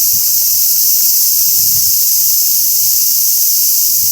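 Cicadas singing in a continuous, high-pitched buzzing chorus that holds steady throughout.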